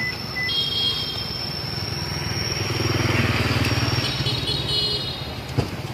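Motor vehicle engine running, its low hum swelling to loudest about three seconds in and easing off again, as of a vehicle passing by. A sharp click sounds near the end.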